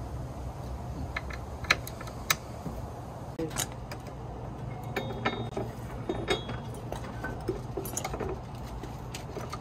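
Scattered metallic clicks and clinks of a hex key, bolts and a metal motorcycle subcage being handled and fitted, with two sharper clicks about two seconds in, over a steady low hum.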